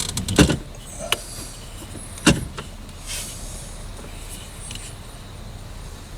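Plastic shifter trim being pressed and pushed into place by hand: a few sharp knocks and clicks, the loudest about two seconds in, as the piece is forced but does not seat properly.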